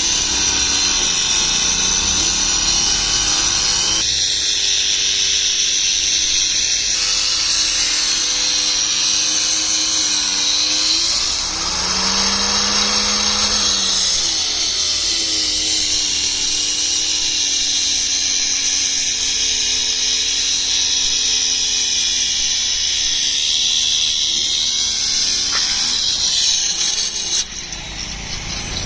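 A machine, like a power tool, running steadily with a strong high hiss. Its pitch bends up and back down briefly about halfway through, and it drops away suddenly near the end.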